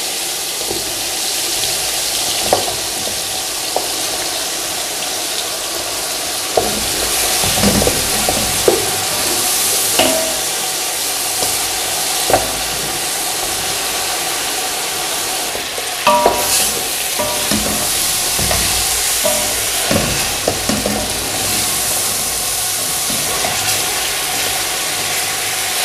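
Raw chicken pieces sizzling and frying in hot oil with ginger-garlic paste in an aluminium pot, a steady frying hiss, as the pieces go in and a wooden spoon stirs them, with scattered short knocks.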